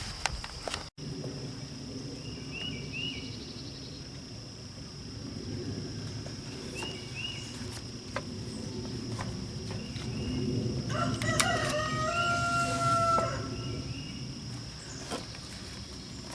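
A rooster crowing once, a call of about two seconds starting around eleven seconds in, over small bird chirps and a steady high-pitched insect drone.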